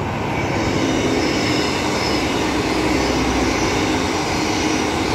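Six-car Transperth electric multiple-unit train running past at speed, a steady rumble of wheels on rails with a thin high whine through it. Freeway traffic hums underneath.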